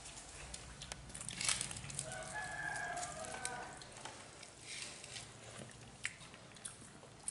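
A rooster crows once, faintly, about two seconds in, a held call lasting a second and a half. Around it are a few light clinks of steel plates.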